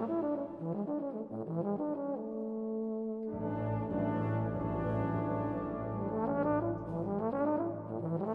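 Euphonium solo with wind band accompaniment: the euphonium plays a moving melodic line, and sustained low chords in the band come in about three seconds in.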